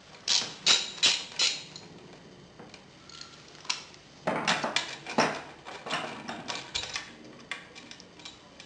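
Metal hand tools clinking and scraping against a bicycle's crank arm while the crank bolt is being undone, and a screwdriver set down on the wooden bench. A cluster of sharp, ringing clinks comes in the first second and a half, another about four seconds in, with lighter taps between.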